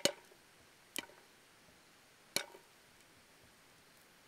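Metal lid of a stainless steel canteen cup clinking sharply three times, at the start, about a second in and about two and a half seconds in, as steam from the water heating beneath lifts and drops it.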